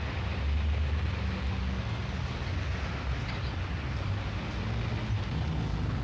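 City street traffic noise: a steady low rumble of passing vehicles with a hiss of general street sound.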